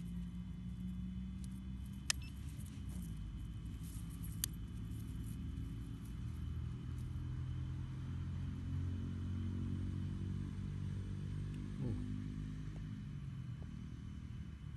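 A low engine hum, like a motor vehicle running, its pitch drifting slowly, with two sharp clicks about two seconds and four and a half seconds in.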